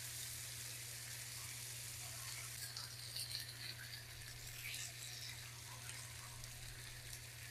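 Beef chuck chunks sizzling faintly and steadily as they sear in smoking-hot smoked tallow in a cast iron pan, with a few small taps as the pieces are turned.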